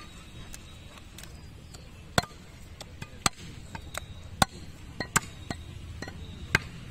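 Heavy butcher's cleaver chopping through beef onto a wooden stump chopping block: sharp, irregularly spaced chops, a handful of hard strokes with lighter taps between.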